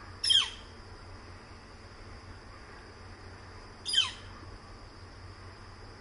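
Northern flicker giving two short, loud calls, each a sharp downward-sliding 'kyeer', about three and a half seconds apart.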